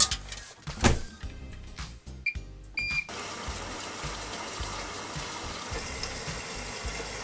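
Front-loading washing machine: a couple of thumps as the load is pushed in, two short beeps from the control panel, then a steady rush of water filling the drum as it turns with the clothes inside.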